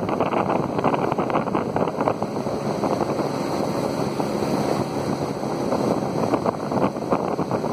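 Small aluminium boat under way on a river: a steady outboard motor running, with wind buffeting the microphone and water rushing along the hull.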